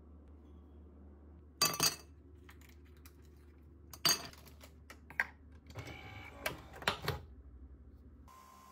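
Ice cubes dropped into a tall drinking glass, clinking sharply against the glass and each other about five times at uneven intervals.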